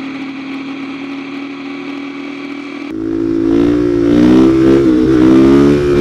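Supermoto motorcycle engine running at a steady pitch, then about three seconds in it gets louder and its pitch rises and falls as the throttle is worked.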